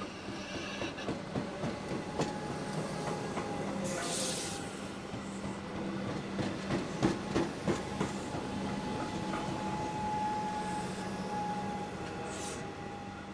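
Six-car Comeng electric multiple unit rolling past, its wheels clacking over the rail joints in a steady rhythm, loudest about seven seconds in, over a steady hum. There are two short hisses, and a thin steady tone joins in about eight seconds in.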